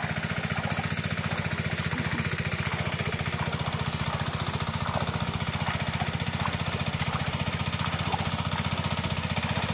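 A small engine running steadily at one constant speed, its even pulse unchanged throughout.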